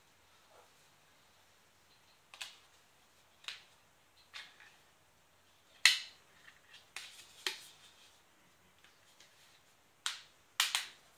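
Plastic back cover of a Nokia Lumia 635 being pressed onto the phone and clipped into place: a series of sharp plastic clicks, the loudest about six seconds in and a quick few near the end as the edges are pressed home.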